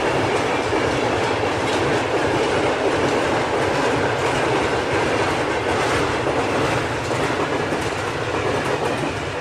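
Commuter train running along the tracks: a steady rush of wheel-on-rail noise that eases slightly near the end.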